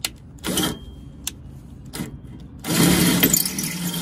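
Milwaukee cordless drill boring into a welded steel frame bar: a short burst of drilling about half a second in, then a longer steady run starting near the end, the motor whining as the bit cuts the steel.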